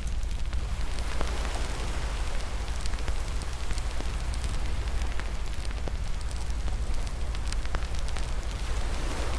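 Wood fire crackling in a fireplace: a steady low rumble and hiss of the flames with many irregular sharp pops and snaps.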